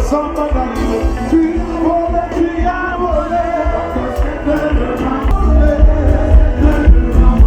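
Loud live band music with a singer, sung in Haitian Creole or French, over a heavy bass line; the bass grows heavier about five seconds in.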